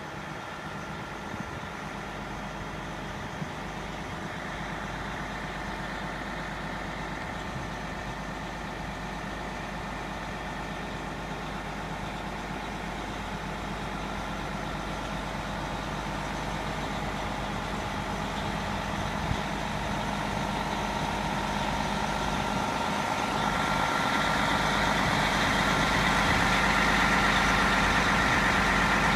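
Prevost H3-45 coach's rear-mounted diesel engine idling steadily, growing gradually louder through the second half.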